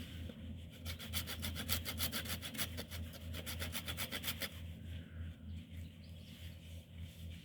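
Hand saw cutting through wood in quick, even strokes for about four seconds, then slower, softer rubbing strokes.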